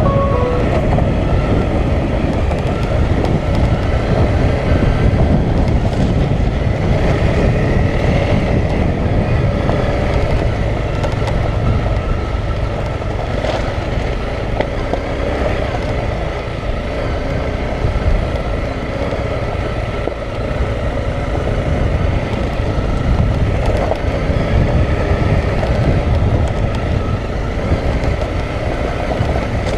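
Honda CRF250L dual-sport motorcycle's single-cylinder engine running steadily at low speed over a rough, rocky dirt track, heard from the rider's helmet-mounted camera.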